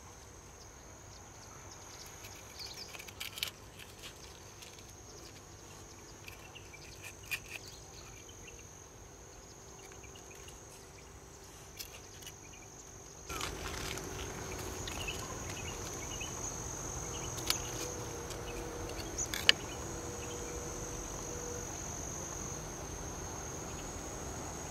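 Steady, high-pitched insect chirring, with a few small clicks and taps from a knife and hands working roasted partridge on a rock. The background hiss steps up about halfway through.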